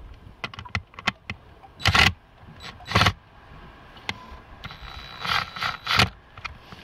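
Handling sounds of wiring being worked by hand on an outboard's electrical terminals: scattered small clicks and clinks of connectors and wire ends, with louder scraping and rustling about two and three seconds in and again around five to six seconds in.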